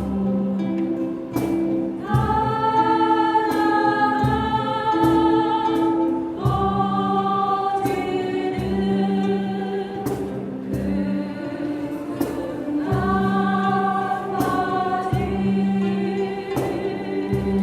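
A group of voices singing a Korean song in unison over instrumental accompaniment with a steady beat; new sung lines come in about two seconds in, about six seconds in and about thirteen seconds in.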